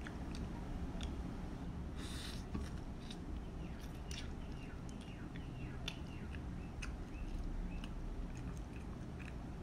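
Close-up mouth sounds of a person eating instant noodles: slurping and chewing with wet clicks and squelches, and a short hissing slurp about two seconds in.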